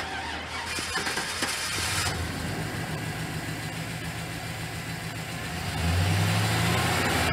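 1999 Chevrolet C/K 3500 truck's V8 engine running at a steady idle, and getting louder about six seconds in.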